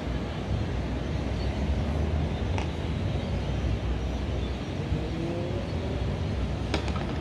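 Steady low rumble of distant city street traffic heard from high above, with a faint rising engine note about five seconds in. Sharp clicks sound about two and a half seconds in and twice near the end.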